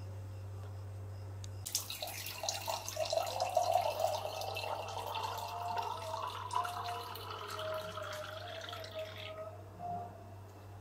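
Watermelon juice splashing and sloshing in a glass as a spoon stirs it, with small clicks against the glass; it starts suddenly about two seconds in and fades out near the end.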